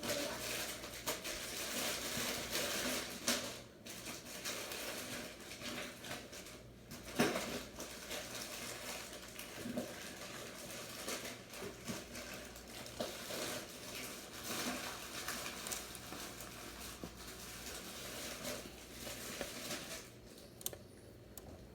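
Close handling noise of a small screwdriver working at a tiny laptop screen screw: scattered clicks, taps and scraping over a steady rustle.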